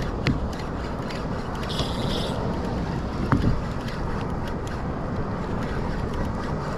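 Wind buffeting the microphone over open sea, a steady low rumble, with scattered small clicks and taps through it and a brief hiss about two seconds in.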